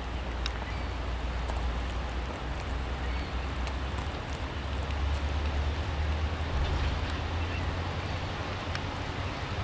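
Train rolling past: a steady low rumble under an even hiss of wheels on rail, with scattered light clicks.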